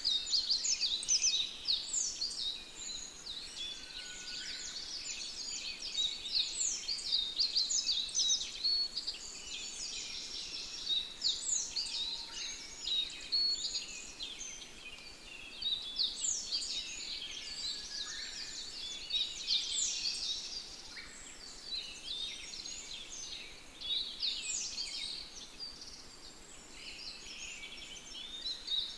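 Forest birds calling in a dense chorus: many quick, high, down-slurred chirps overlapping without a break.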